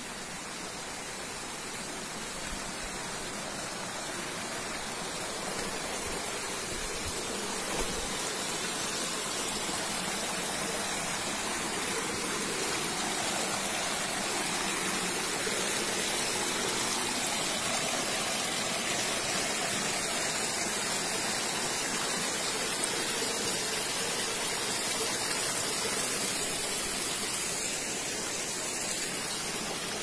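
Rushing water of a rocky stream pouring over boulders, a steady hiss that grows a little louder over the first half.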